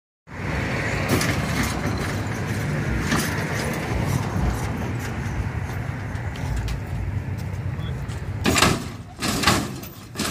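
Lowrider hydraulic pumps on a 1987 Oldsmobile Cutlass running steadily as the switches are hit, lifting and dropping the car's front end. Several short, louder bursts come in the last two seconds.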